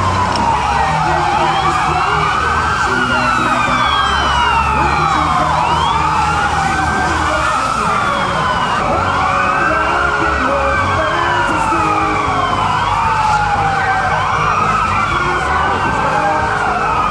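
Several fire truck sirens wailing at once, their rising and falling tones overlapping out of step, over a steady low rumble.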